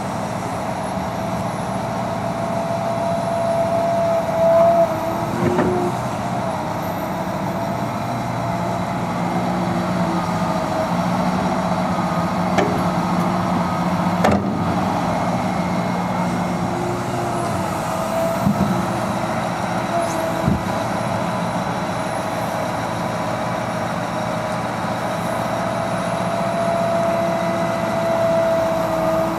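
Liebherr R 926 crawler excavator working: its diesel engine runs under load with a hydraulic whine that rises and falls as the boom, arm and swing move. A few metal clanks come as the bucket digs and dumps earth into a dump truck, the sharpest about halfway through.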